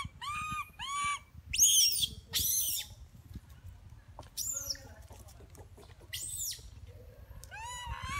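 Baby macaque crying: short, arched, high-pitched cries, three in quick succession at the start, then two higher, harsher screams about two seconds in, with a few more cries scattered through and one near the end.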